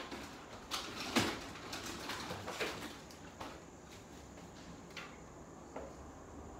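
Someone moving about out of view: a series of short knocks, clicks and rustles, several close together in the first three seconds, then a few sparser ones.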